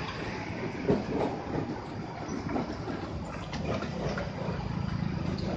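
UD Quester box truck driving slowly past: a low diesel rumble with irregular knocks and rattles from the body and chassis, the rumble growing a little stronger near the end as it pulls away.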